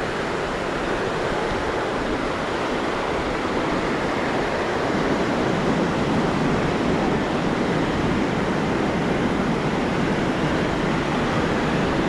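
Ocean surf washing onto a sandy beach: a steady rush of waves that swells a little about five seconds in.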